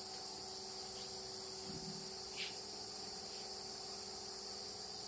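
Steady high-pitched insect chirring over a faint steady hum, with one brief soft noise about two and a half seconds in.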